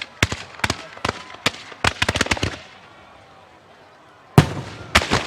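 Aerial fireworks shells bursting: a quick run of sharp cracks for the first couple of seconds, then a loud boom about four and a half seconds in, followed by another.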